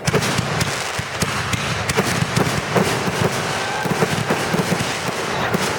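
Fireworks going off: a dense, irregular run of sharp pops and crackles that starts abruptly.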